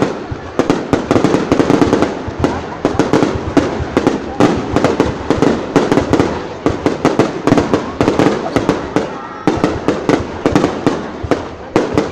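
New Year's Eve fireworks display: a dense, continuous barrage of loud bangs, several reports a second.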